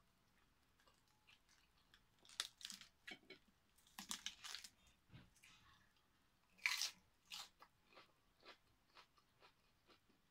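A person biting into and chewing crisp lettuce leaves: three bouts of loud crunching, about two, four and nearly seven seconds in, with softer chewing clicks between.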